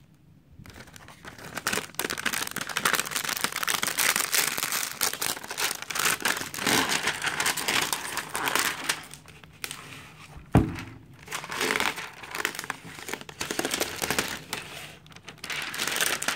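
Clear plastic film wrapping crinkling and crackling as it is pulled and peeled off a speaker by hand, with one sharp knock about two-thirds of the way through.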